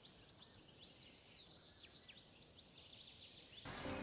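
Faint birds chirping in many short calls over a steady high hiss. Music comes in near the end.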